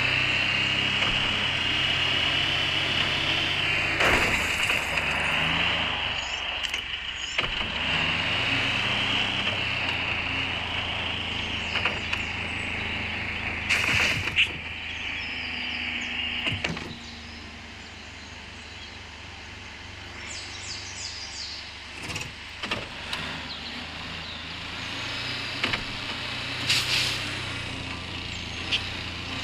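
4x4 vehicle driving off road, its engine running steadily, with scattered knocks and rattles. The engine runs louder through the first half and eases off after about 17 seconds.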